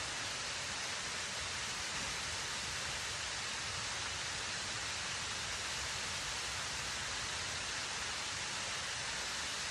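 Two waterfalls pouring, a steady, even rush of falling water with no change in level.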